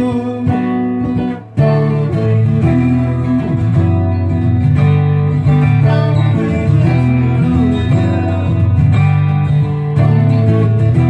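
Guitar playing an instrumental passage of a song, with a short break about a second and a half in before the chords resume.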